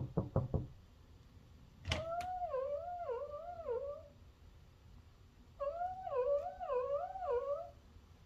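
Senior miniature dachshund making two long warbling cries, their pitch wavering up and down, that sound like a fur seal's call. A few quick knocks come at the very start.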